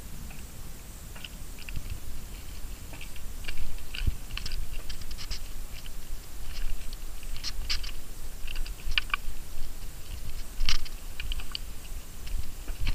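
Footsteps crunching on a dry, stony trail: irregular crisp clicks and crackles with no even rhythm, over a low rumble.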